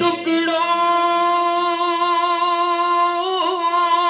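A man's voice singing a devotional naat without instruments, holding one long steady note that wavers briefly about three seconds in.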